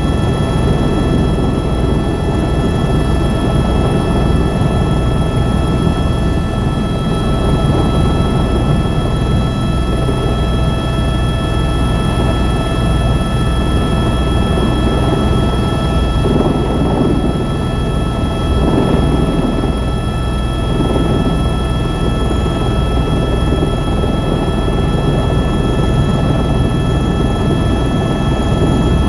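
Helicopter in flight: steady rotor and turbine engine noise, a dense low rumble with a constant high whine on top.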